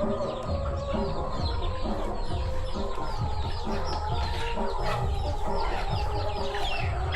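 Backyard chickens clucking, with many short, high, falling chirps repeated throughout.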